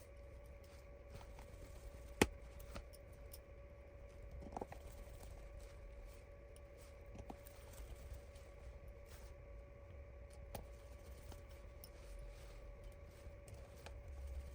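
Faint, scattered clicks and taps of small tools and parts while a Samsung Galaxy S21's midframe is screwed back on, with one sharper click about two seconds in, over a low steady hum.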